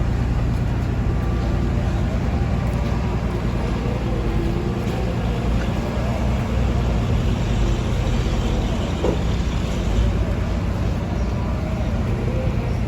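Steady low rumble of a heavy diesel engine running without pause.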